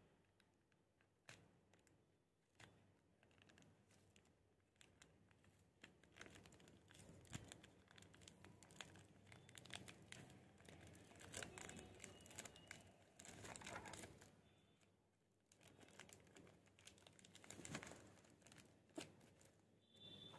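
Faint crinkling and tearing of clear tape and paper as small handmade paper items are unwrapped by hand. Irregular rustles and little clicks come busiest in the middle and again near the end.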